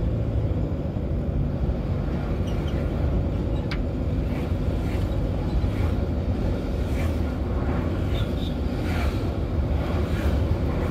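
Steady low rumble of road traffic, with faint swishes every second or so.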